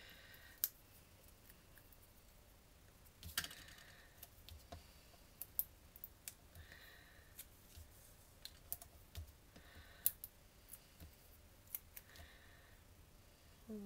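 Faint handling of paper and card: sharp little clicks and taps, with a short rustle every few seconds, as small paper flowers backed with foam dimensionals are picked up and pressed onto a card.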